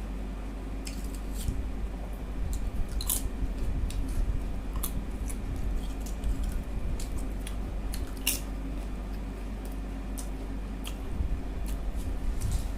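A person chewing and eating egg curry with rice: scattered short, wet clicks and smacks, over a steady low hum.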